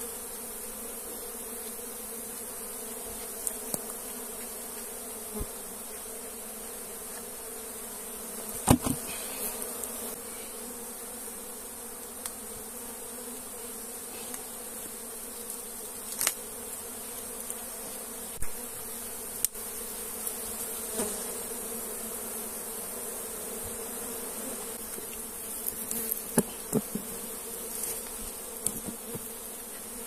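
A honeybee colony buzzing steadily around its opened log hive, disturbed by the honey harvest. Scattered sharp clicks and knocks come over the buzz, the loudest about nine seconds in and a cluster near the end.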